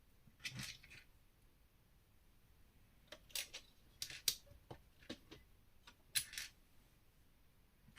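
Plastic LEGO bricks being handled: a series of short clicks and brief rattles, with a cluster of them in the middle.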